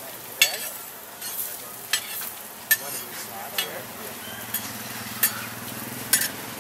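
Pancake frying and sizzling on a hot flat griddle, with sharp clicks of a metal spatula and scraper striking the griddle and plate roughly once a second.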